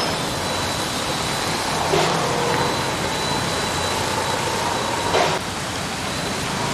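Steady street traffic noise of vehicles running along a flooded road, with a couple of brief thumps.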